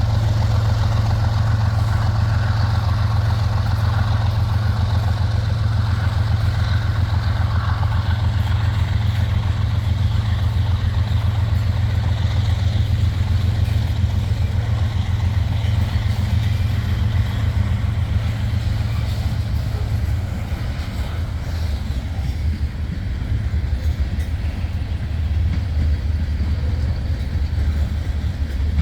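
Two GE ES44AH diesel-electric locomotives working under load as the freight pulls out, a steady low engine drone that eases slightly about twenty seconds in.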